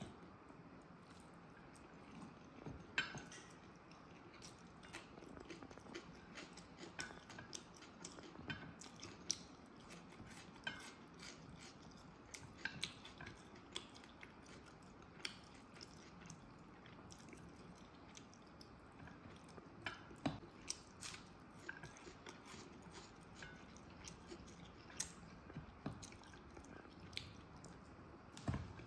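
Close-miked eating sounds: chewing of biryani rice eaten by hand, with short, sharp wet mouth clicks and smacks scattered irregularly.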